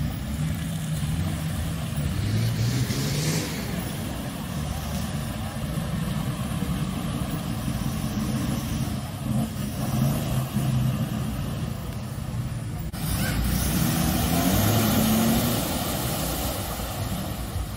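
Off-road 4x4 engines revving up and down as the vehicles push through a muddy water crossing, with an abrupt change to another vehicle about 13 seconds in.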